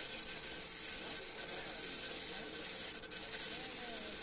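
Electric welding arc hissing steadily on a pipe joint in the 6G position, with a brief dip about three seconds in.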